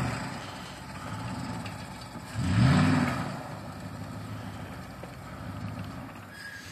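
Pickup truck engine revving as the stuck truck spins its wheels in deep snow: one surge of revs about two and a half seconds in that climbs and falls, with the engine running lower before and after it. The truck is stuck, its wheels packed with snow.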